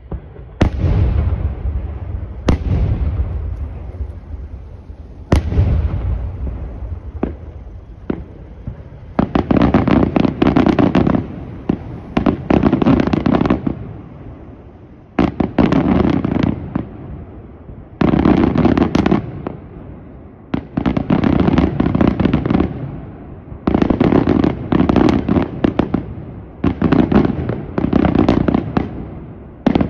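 Aerial firework shells bursting: three single sharp bangs with low rumbling echo in the first eight seconds, then repeated bursts of dense, rapid crackling, each about two seconds long and coming roughly every three seconds.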